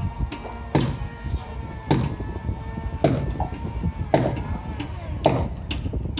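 Hammer blows on a wooden boat hull under repair: five hard strikes at an even pace of about one a second, each with a short ring, and lighter knocks between them.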